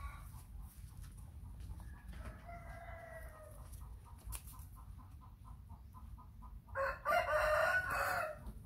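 A rooster crowing twice: a fainter crow about two seconds in, then a louder, longer crow near the end. A faint rapid pulsing runs underneath.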